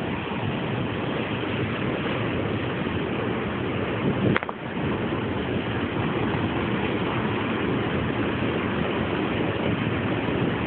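Steady roar of water rushing through a dam, recorded on an old Nokia N70 phone so the sound is dull and cut off above the mid-highs. A single short click comes about four seconds in.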